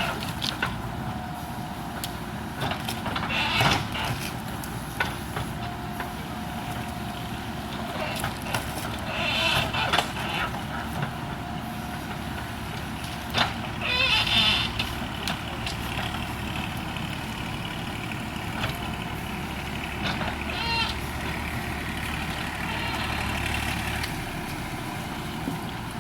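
JCB backhoe loader's diesel engine running steadily as the machine works, with short high-pitched squeals and scattered knocks. The engine's low note grows stronger for several seconds after the middle.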